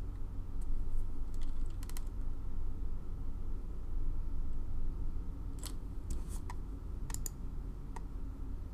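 A few scattered clicks of computer keyboard keys and a mouse, in small clusters with pauses between, over a steady low hum.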